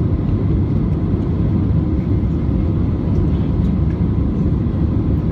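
Steady low rumble of an Airbus A320's jet engines and rushing air, heard from inside the passenger cabin as the airliner climbs out after takeoff.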